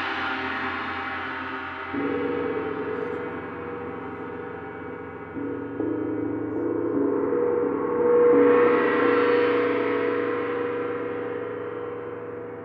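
Large tuned planetary gongs being played, a long ringing wash of many overtones. New strokes swell it up about two seconds in, again around five to six seconds, and most strongly near eight seconds, each time slowly dying away.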